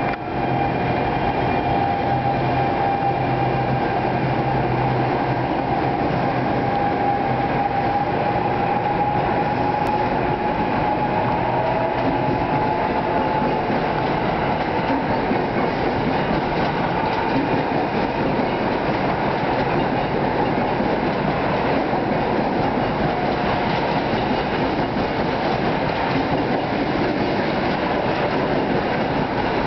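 NJ Transit Arrow III electric multiple-unit train rolling steadily past as it pulls out, its wheels running on the rails. A steady high tone rides over the rumble in the first half and fades out around the middle.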